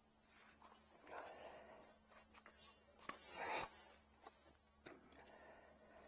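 Faint handling sounds on a workbench: light clicks and rustles, with one louder brief scrape about halfway through.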